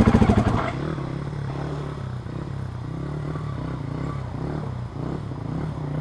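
Husqvarna dirt bike engine running loud for the first half second, then dropping to a steady, slightly wavering idle.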